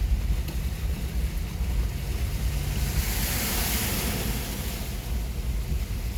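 Wind buffeting the microphone over moving floodwater, with a broad hiss that swells and fades about three to four and a half seconds in.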